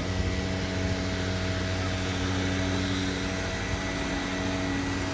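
Steady machine drone with a low, unchanging hum of several pitches.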